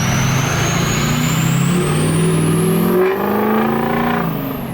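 Ford 6.0 Powerstroke diesel V8 pulling hard under acceleration, its KC Stage 3 turbo whistling in a high tone that climbs steadily as it spools up and falls away near the end. The engine note rises, dips about three seconds in, then rises again.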